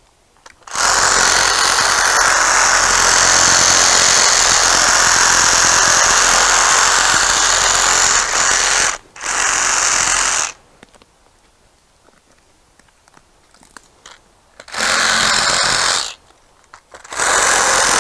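Ryobi One+ HP compact cordless reciprocating saw cutting through tree branches in four runs. The first is a long cut of about eight seconds, followed by a short one straight after. Two brief cuts of about a second each come later.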